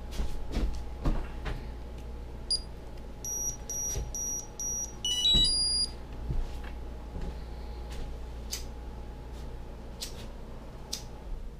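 ImmersionRC Vortex FPV quadcopter being plugged in and powering up: a few clicks of the battery connector, then the ESCs beep through the motors, one short high beep, four evenly spaced beeps, and a quick run of rising tones.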